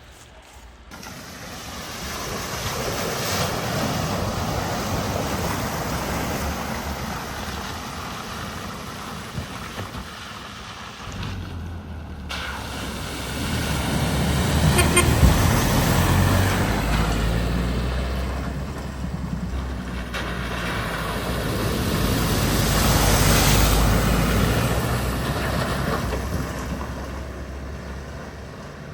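Vehicles driving through a flooded ford: engines running and water rushing around the wheels in three rising-and-falling passes. A deep engine rumble comes in about a third of the way through.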